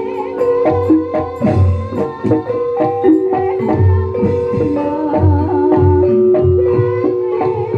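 Live Banyumasan ebeg accompaniment music: a gamelan-style ensemble of struck tuned instruments playing held, overlapping notes, with drums and deep drum strokes every second or two.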